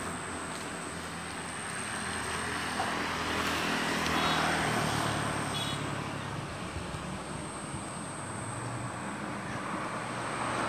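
A motor vehicle's engine running steadily, its low pitch dropping a little about four seconds in, over an even hiss.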